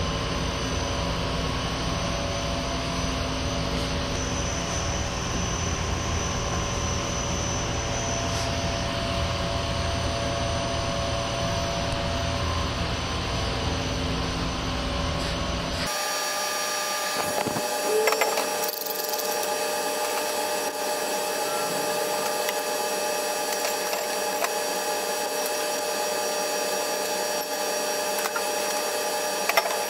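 Steady mechanical noise with a constant hum. About halfway through it cuts abruptly to a thinner hum with steady tones and without the deep rumble.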